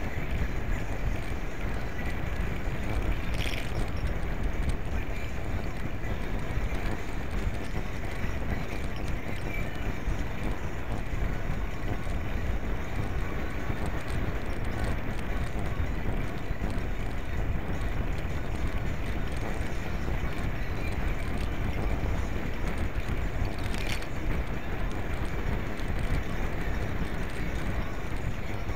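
Steady wind noise on a small action camera's microphone and the low rumble of bicycle tyres on pavement while riding. Two brief clicks or rattles stand out, one about three seconds in and one late on.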